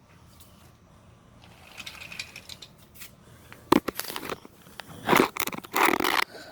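Wooden toy train and track pieces being handled, with rustling and scraping that turns into several loud scrapes and clatters in the second half.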